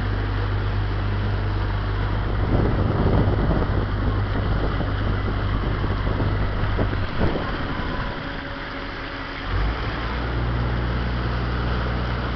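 Motorboat engine running with a low, steady hum, over the rush of water and wind on the microphone. The engine hum drops away about seven seconds in and comes back strongly about two and a half seconds later.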